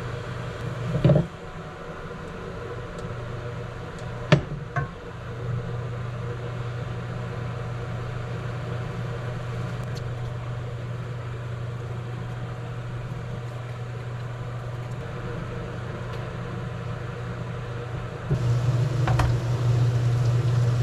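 Steady low hum of a running kitchen appliance, getting louder a few seconds before the end, with a few sharp knocks and clicks scattered through it.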